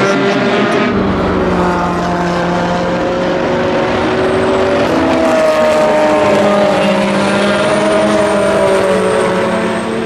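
Vanwall Vandervell 680 hypercar's naturally aspirated Gibson V8 running at racing speed as the car passes, loud and steady. Its engine note climbs slowly through the middle and eases down near the end.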